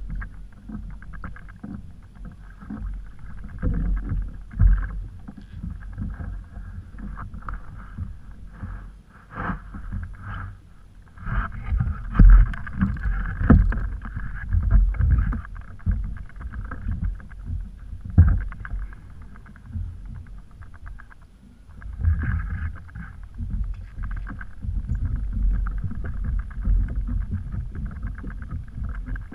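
Water sloshing against a plastic sit-on-top kayak's hull with an uneven low rumble, broken by several sharp knocks on the boat.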